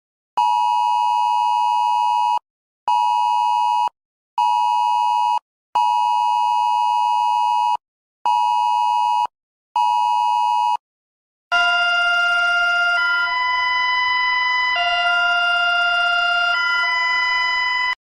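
Smartphone wireless emergency alert attention tone, a harsh two-note electronic tone sounding in its cadence of one long blast and two short ones, played twice through. About eleven seconds in it gives way to a different electronic alert of several steady tones sounding together, the chord changing about every two seconds.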